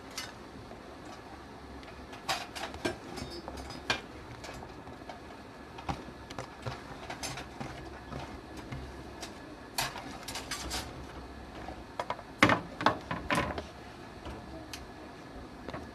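Chopped fruit tipped from a plastic chopping board into a large bowl: scattered light knocks and taps of the board against the bowl and of fruit pieces dropping in, coming in a few short clusters, the sharpest a little after the middle.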